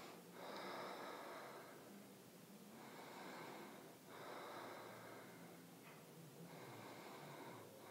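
Faint, slow, deep breathing from a person holding a yoga pose, with long breaths in and out, each about two seconds.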